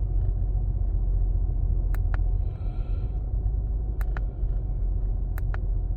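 2005 Acura TL's 3.2-litre V6 running at idle with a steady low rumble, while it has a misfire at idle. Three pairs of sharp clicks come about every second and a half over it.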